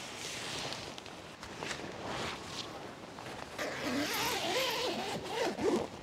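Sea to Summit tent's door zipper being pulled shut in several strokes, loudest in the second half, with the tent fabric rustling.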